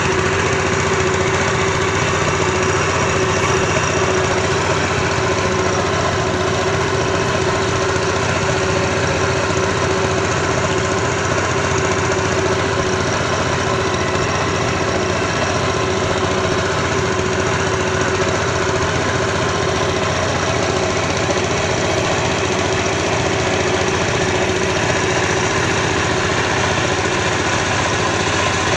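Small engine running at a steady, unchanging speed.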